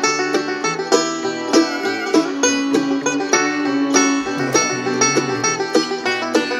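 Background music with a steady run of quick plucked-string notes.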